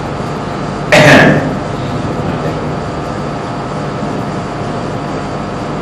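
A man coughs once into the microphone about a second in, a short loud burst, over a steady background hum.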